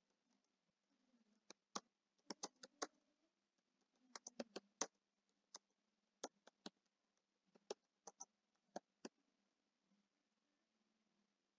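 Typing on a computer keyboard: faint key clicks in short, irregular bursts of a few keystrokes each.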